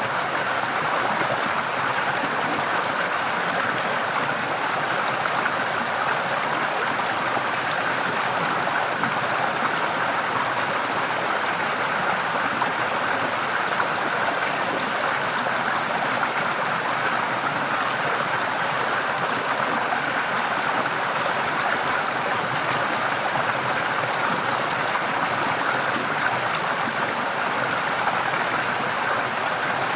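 Forest stream flowing and splashing, a steady rushing of water.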